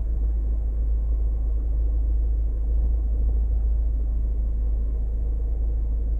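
Steady low rumble inside a car's cabin with the engine running.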